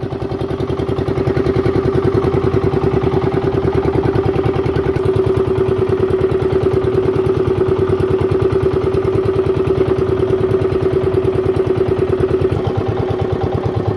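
Small fishing boat's engine running steadily with a fast, even beat. It picks up a little about a second in, and its note shifts slightly near the end.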